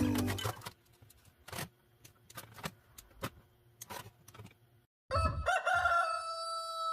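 A few scattered light clicks, then about five seconds in a rooster crowing once in one long call that rises and then holds its pitch.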